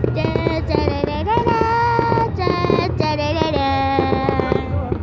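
A high voice singing a song in long held, gliding notes, with a sharp firework bang about three seconds in.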